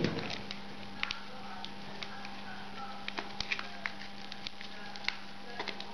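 Scattered light clicks and taps from kitchen utensils and ingredients being handled while cheesecake filling is put together, over a steady low hum.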